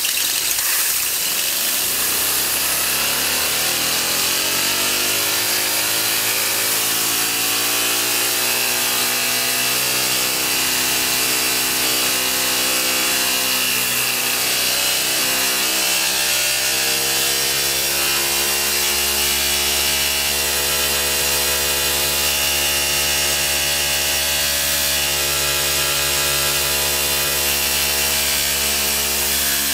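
Compressed-air blow gun hissing steadily at a Tesla turbine's stack of thin stainless steel discs while the rotor and the small motor it drives spin up unloaded, their whine rising in pitch through the first half and then levelling off at top speed.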